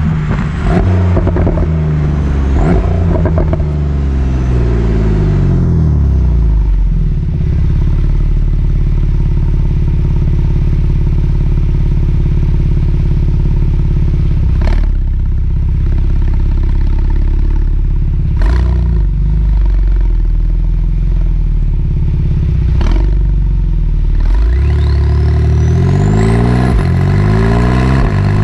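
Porsche 911 991.2 Carrera 4S twin-turbo flat-six through its sport exhaust. The revs fall away to a steady idle, broken by three sharp cracks spread through it. Near the end the engine is revved up again, with a rising turbo whistle.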